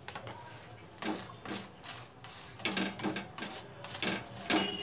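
A spatula scraping in quick repeated strokes across a paratha on a hot tawa, spreading oil over the bread. The strokes come about two or three a second and grow louder from about a second in.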